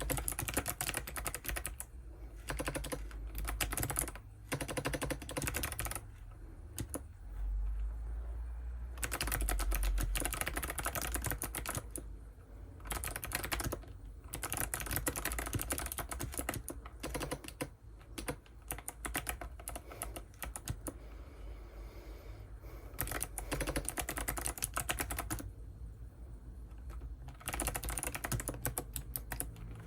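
Typing on an ABKO ADK05 mechanical keyboard with white switches: quick runs of key clicks and clacks, broken by short pauses of a second or two.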